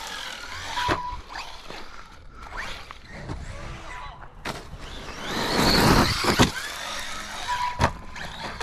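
Brushless electric motor of an Arrma Outcast 4S RC stunt truck whining under throttle as its tyres throw gravel, with several sharp knocks of the truck hitting the ground. The rush of motor and gravel is loudest a little past the middle.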